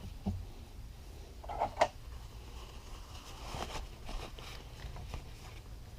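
A few light clicks and knocks of small metal engine parts being handled, the sharpest pair a little under two seconds in, over a faint low hum.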